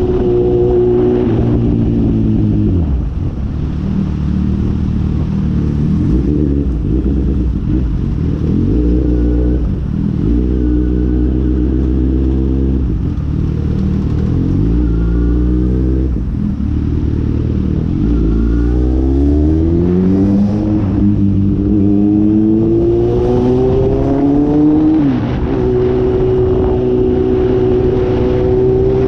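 Inline four-cylinder motorcycle engine under way, its pitch climbing under acceleration and dropping back at each gear change several times, then holding fairly steady near the end. Heavy wind noise on the microphone runs underneath.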